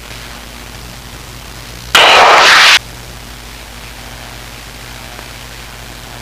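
Cockpit intercom audio of a Luscombe 8A in flight: a steady low hum, broken about two seconds in by a sudden loud burst of static hiss, under a second long, that cuts in and out abruptly.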